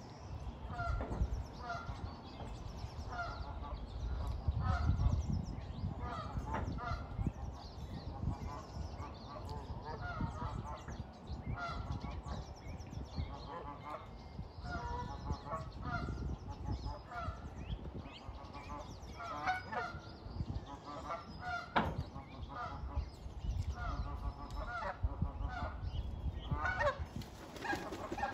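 Canada goose honking over and over, short calls repeated about once a second.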